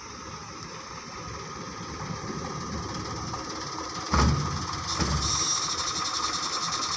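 Diesel truck engine idling close by, with a sharp thump about four seconds in. From about five seconds a fast, even rattle comes in and grows louder.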